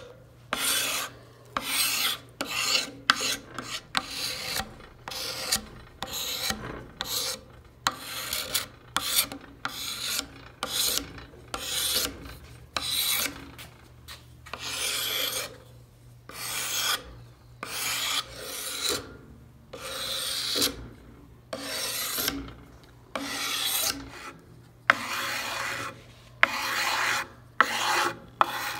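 Draw knife held blade-backwards scraping along an old wooden axe handle in repeated rasping strokes, a little more than one a second. The blade is raking off the weathered, mildewed surface layer of the wood.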